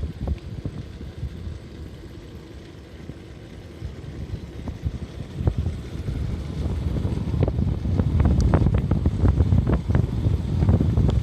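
Wind buffeting the microphone over the low rumble of a vehicle driving along a road, with scattered crackles. It gets louder from about halfway through.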